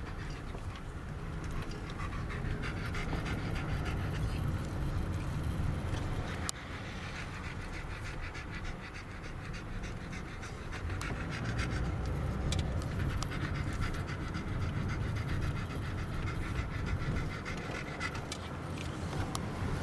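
Dog panting rapidly and steadily inside a moving car, with the car's engine and road rumble underneath.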